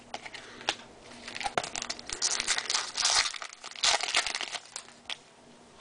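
Crinkling and rustling of trading-card packaging being handled, in irregular crackly bursts, busiest from about two to four seconds in.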